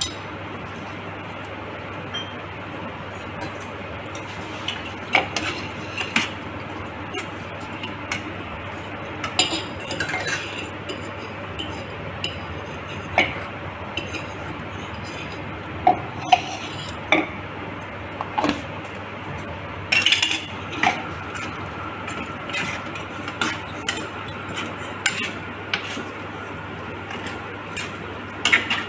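A metal spoon stirring rice and vegetables in a wet cooking pot, with irregular sharp clinks and knocks against the pot's sides over a steady low hum.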